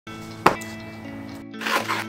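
Background music with steady held notes and one sharp hit about half a second in. Near the end, scratchy rustling starts: hands working the taped flap of a cardboard shipping box.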